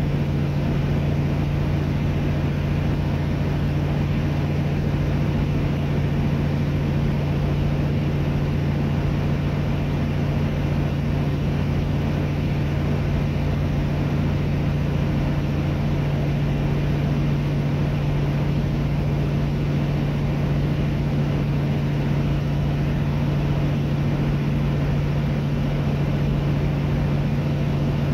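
Truck engine running at a steady low drone with tyre and road noise, heard inside the cab while rolling down a long downhill grade. The hum holds one even pitch throughout, with no shifts or revving.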